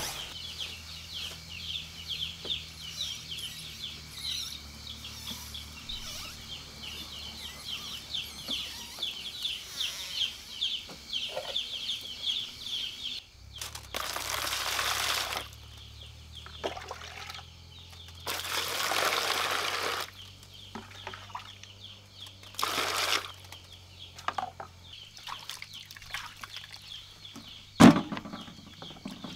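Rapid high chirping runs through the first half. Then water is poured three times into a red plastic basin of guavas, each pour a short rush, and a sharp knock comes near the end.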